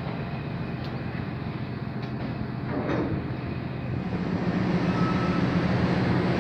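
Steady low drone of a car ferry's diesel engines, with a constant hum beneath a noisy rumble. About four seconds in it grows louder and fuller, heard from inside the ship.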